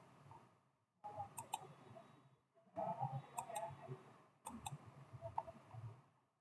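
A few faint computer mouse clicks, each a quick double click, heard over low room noise that drops out to dead silence in between.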